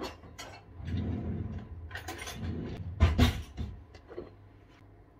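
Clinks and knocks of kitchen cutlery and fittings being handled while a knife is fetched, with the loudest knocks about three seconds in.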